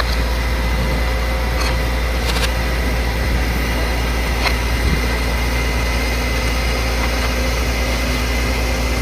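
Komatsu PC205 excavator's diesel engine running at a steady speed, with a few faint clicks over it.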